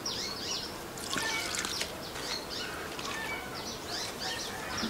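Coconut milk being poured from a bowl into a plastic bowl of batter flour, a soft liquid pour, with birds chirping over it again and again.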